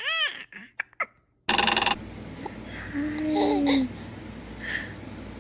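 Baby's vocal sounds: a whiny cry that cuts off just after the start, then a short buzzy burst about a second and a half in, and a brief soft coo around three seconds in.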